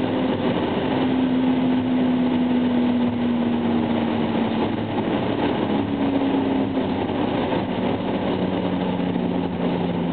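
BMW M5 engine and tyre noise heard from inside the cabin while driving: a steady engine drone over road noise. Its pitch slowly falls, lifts briefly about halfway through, then settles lower.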